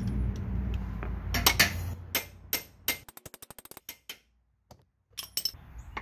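Sharp metal-on-metal taps and knocks at a motorcycle's rear axle, striking to drive out a spacer shim. There are a few single taps, then a quick rattling run of about a dozen clicks around three seconds in, then more taps near the end, over a low rumble that fades after about two seconds.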